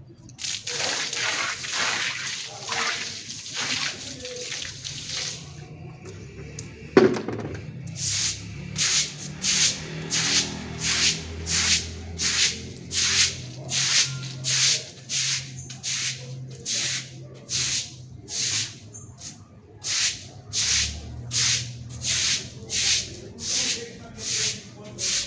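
Stiff broom scrubbing a wet floor. Quick, close-packed strokes come first, then a single knock about seven seconds in, then steady even strokes at about one and a half a second.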